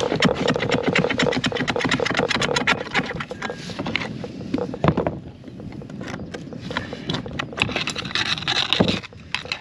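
Tools clicking, knocking and scraping on the fittings as the bolts holding a boat's anchor windlass are worked loose: a dense run of clicks and scrapes for the first three seconds, then sparser knocks.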